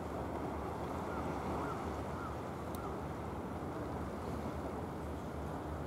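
Steady seaside ambience of wind and sea water, constant and without any distinct event, with a few faint short chirps between about one and three seconds in.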